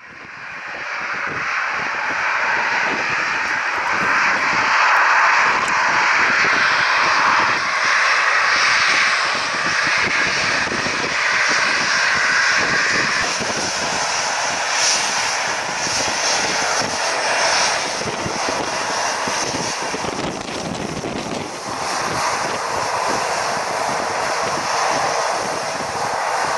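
Boeing 737-800's CFM56 jet engines running at low taxi power close by: a steady whine and rush with no change in pace. Gusty wind buffets the microphone underneath.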